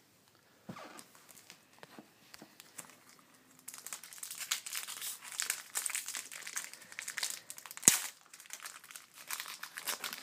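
Foil trading-card pack wrapper being torn open and crinkled by hand, a dense crackling that starts a few seconds in and runs on, with a single sharp snap near the end that is the loudest moment.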